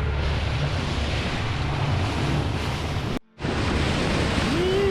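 Wind buffeting the microphone over the rush of water around a boat at sea. A sudden gap of near silence breaks it for a moment a little after three seconds in.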